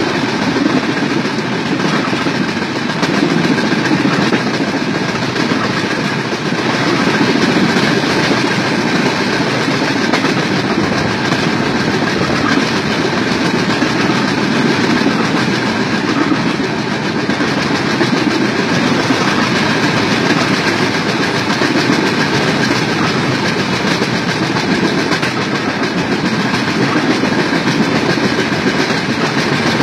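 Steady running noise of a moving train, its wheels rolling on the rails.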